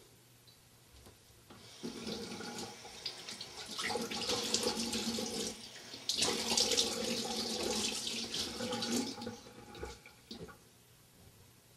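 Bathroom sink tap running as a man washes his face, splashing water from the basin. The running water starts about two seconds in, breaks off briefly near the middle and stops about ten seconds in.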